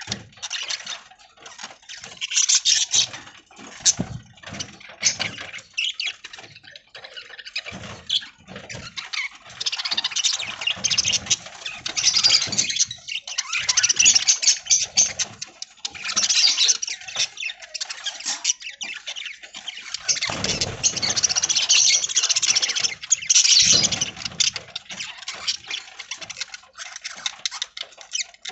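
A flock of budgies chattering and chirping, in dense waves of high chatter and clicks that swell and fade, with lower rustling now and then.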